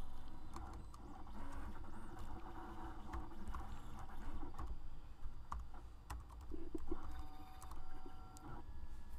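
Typing on a computer keyboard: irregular key clicks as a command is entered, over a low steady hum.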